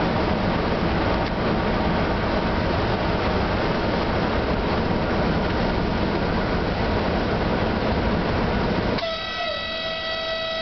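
Running noise inside the cab of an E655 electric locomotive at speed: a steady rumble and rush of wheels on rail. Near the end, a single-pitched horn-like tone is held for nearly three seconds while the running noise drops away.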